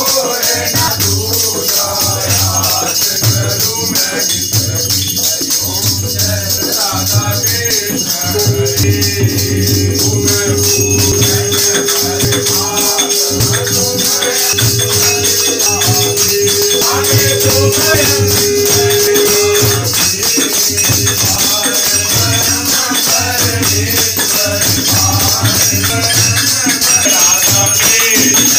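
Aarti music with a steady drumbeat, jingling and rattling hand percussion and voices singing. About a third of the way in, one steady tone starts and is held for about eleven seconds.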